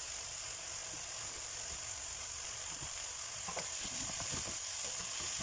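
Diced chicken, carrots and potatoes sizzling steadily in a nonstick pan. From about three seconds in, a wooden spatula stirs through them, with light taps and scrapes against the pan.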